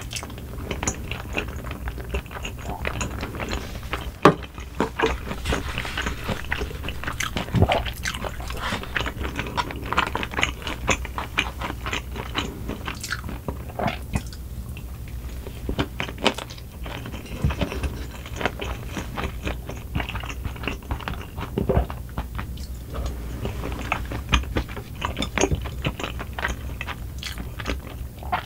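Close-miked chewing and crunching bites of spicy fried rice with pork cartilage (ohdolppyeo), many small crackles and clicks, with a louder crunch about four seconds in.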